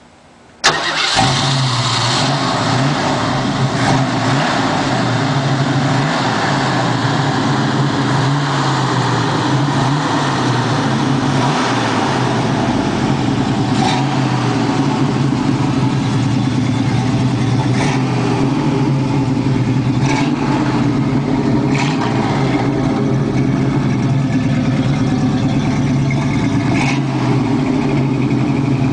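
1969 Ford Mustang's V8 engine starting up with a sudden burst about a second in, then running steadily with several short revs in the first half.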